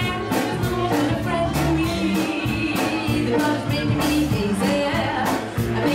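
Live big band playing: saxophones and other horns holding notes over a steady drum beat.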